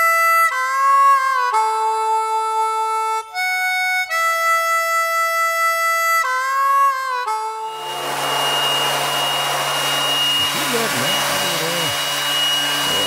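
Music with sustained, changing chords for about the first eight seconds, then an electric hand sander running steadily on a pine board, a steady hum with a high whine.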